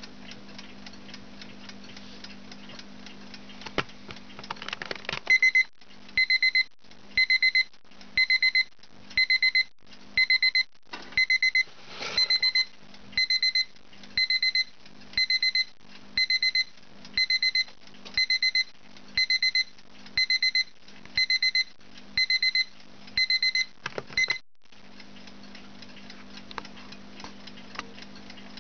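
Eurochron quartz alarm clock ticking. About five seconds in its electronic alarm starts: a high, pulsed beep repeating about once a second, some twenty times. It cuts off about 24 seconds in, after a couple of handling clicks, and the ticking carries on.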